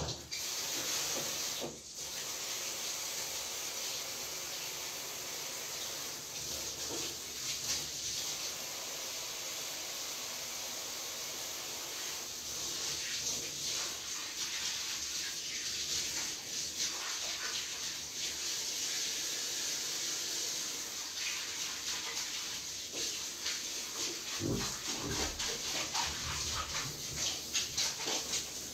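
Steady hissing noise with scattered rustles and light knocks, and a low thump near the end.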